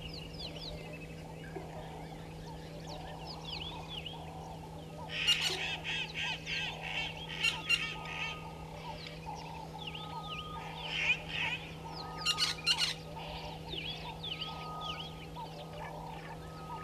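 Wild birds calling in a chorus of many short chirps, broken twice by loud spells of rapid, harsh, repeated calls, the first about five seconds in and the second about twelve seconds in. A steady low hum lies underneath.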